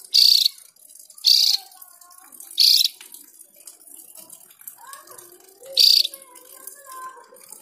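Caged Javan grey-throated white-eye (opior jawa) giving four loud, harsh, rasping calls, each about a third of a second long, spaced irregularly over several seconds.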